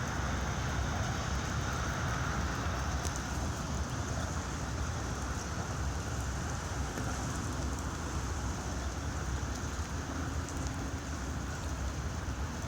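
Steady outdoor rush of wind and high-running floodwater, with an unsteady low rumble of wind on the microphone.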